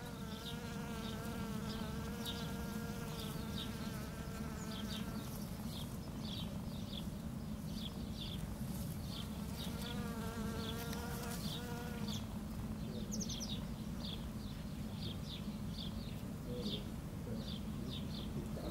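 Honeybee buzzing, a steady pitched hum heard for the first five seconds or so and again briefly about ten seconds in. Short high chirps repeat about twice a second in the background, over a steady low rumble.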